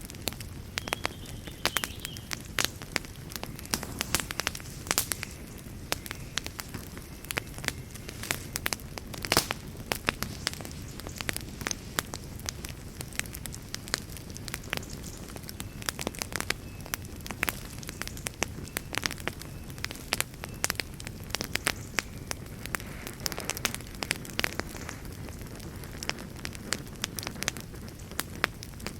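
Wood fire burning in a fireplace: a steady low rumble and hiss of flames with frequent sharp crackles and pops from the burning logs.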